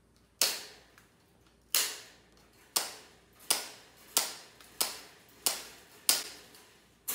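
Tin snips cutting the strands of welded wire fencing one by one: a series of about eight sharp metallic snaps, each with a short ring. They come faster at first, then settle at about one and a half snaps a second.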